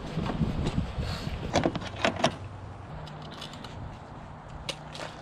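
Several sharp clicks and knocks of hand tools and small parts being handled, with a low steady hum coming in about three seconds in.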